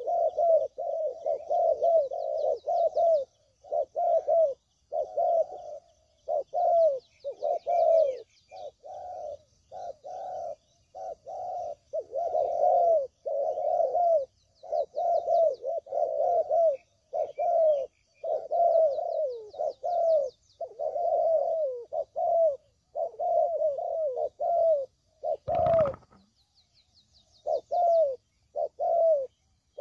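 Spotted doves cooing over and over in quick, overlapping phrases: a lure recording of the tekukur call. Near the end the calling breaks off briefly, with one short thump, then resumes; faint high chirping of small birds sits underneath.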